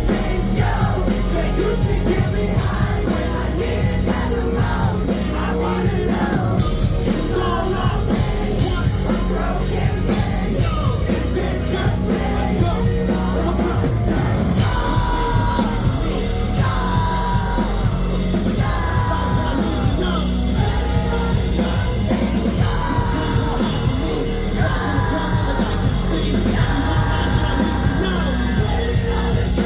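Live band playing a loud rock song, with heavy drums and bass under sung and shouted vocals; in the second half a sung phrase repeats about every two seconds.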